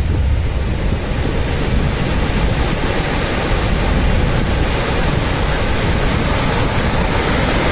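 Small waves breaking and washing up a sandy beach, a steady rushing surf noise, with wind rumbling on the microphone.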